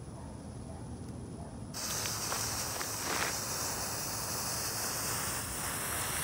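A fountain firework catches about two seconds in and sprays sparks with a steady, high hiss. A few crackles come just after it lights, and a faint whistle slowly rises in pitch underneath.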